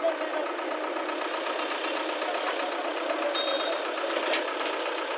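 Tata 315V backhoe loader's diesel engine running steadily at a constant speed.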